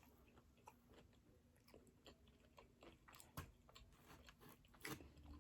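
Faint chewing and mouth sounds of a person eating, with scattered soft clicks and two sharper ones about three and a half and five seconds in.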